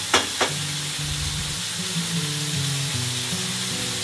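Swordfish fillets sizzling in a hot frying pan over a gas flame, just after being turned over, with two sharp clicks in the first half second.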